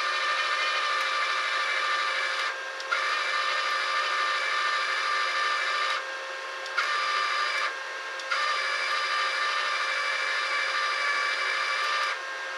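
An inverter flux-core wire welder's wire-feed motor runs as a steady whine in four stretches with short pauses between them, pulling tubular flux-core wire off the spool and through the torch cable. A steady lower hum continues underneath.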